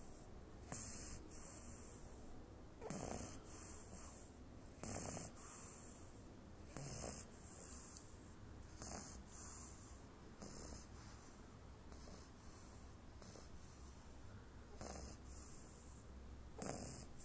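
Small dog snoring in her sleep, one snoring breath about every two seconds.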